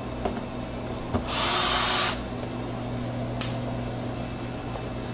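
Cordless drill/driver spinning once for just under a second, about a second in, backing out a quarter-inch hex-head screw from a refrigerator door gasket's retainer track. A sharp click follows later, over a steady low hum.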